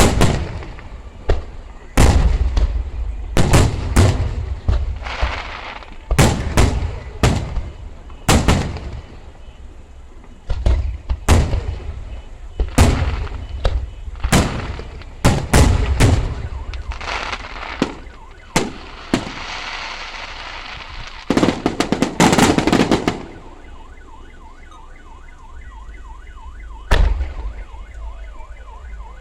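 Aerial fireworks shells bursting one after another with sharp booms, rising to a dense crackling salvo near the middle. After that it quiets to a faint warbling electronic alarm, with one more boom near the end.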